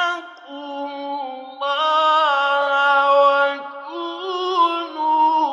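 Male Quran reciter chanting in the melodic mujawwad style, drawing out long, ornamented notes that step up and down in pitch, with short breaths between phrases.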